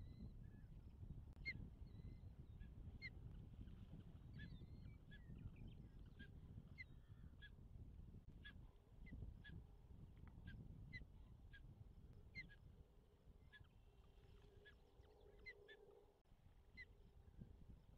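Osprey calling faintly: a long series of short, high chirps, about one a second, over a low rumble.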